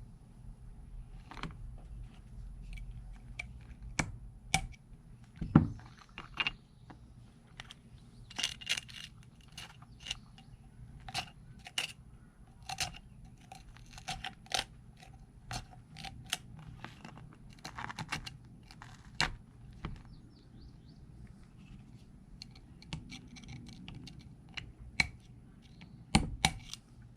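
Small metal hand tool picking and scraping at the crusted body of a Civil War cap-and-ball revolver, chipping off concretion and rock. It makes irregular sharp clicks and scratches, some with a brief metallic ring, and a louder cluster comes near the end.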